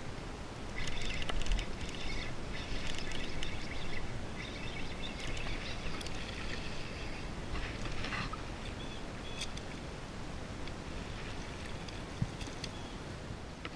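Fishing reel being cranked to bring in a hooked bass, a whirring in several spells of a second or so during the first half. A few sharp clicks follow near the end.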